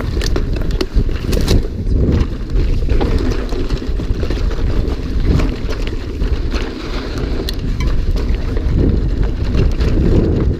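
Wind buffeting the microphone of a mountain bike ridden fast downhill, with frequent short knocks and rattles from the bike over rough trail.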